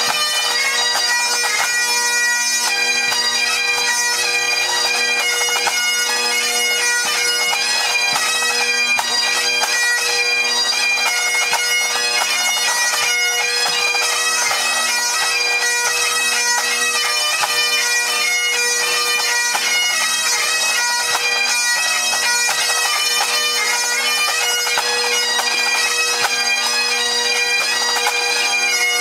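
A full pipe band playing Great Highland bagpipes: steady drones under the massed chanter melody, with snare, tenor and bass drums keeping time, part of a march, strathspey and reel set.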